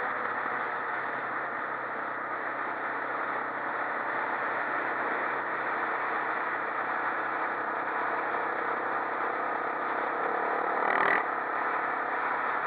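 Quad bike engine running steadily at cruising speed, mixed with even road and wind rush, with a brief louder burst about eleven seconds in.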